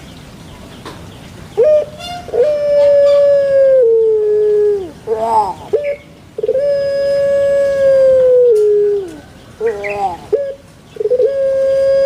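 A bird calling in long drawn-out notes, three times, each held steady, then stepping down in pitch and falling off at the end, with short calls between them.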